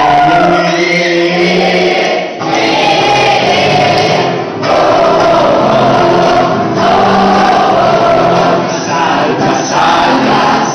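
A crowd singing a religious song together, many voices at once, loud and full, with two brief breaths between phrases near the start.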